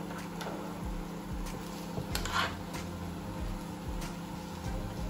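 Metal spoon scraping egg and salami filling onto a flatbread, with a short scrape about two seconds in and a few light taps, over a steady mechanical hum.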